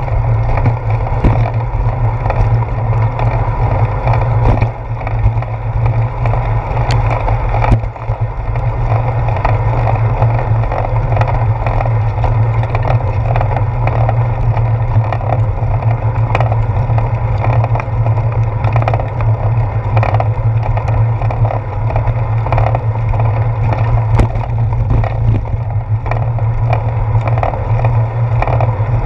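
Steady rumble of a bicycle rolling over a wet concrete path, heard as wind and road vibration through a handlebar-mounted action camera, with scattered light knocks from bumps in the path.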